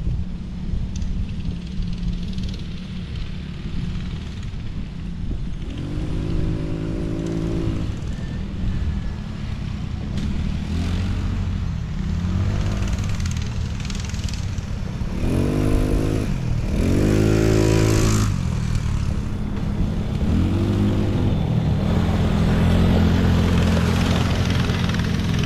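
Small engines of a mini bike and an ATV running and revving up and down again and again over a steady low engine drone, loudest about 15 to 18 seconds in.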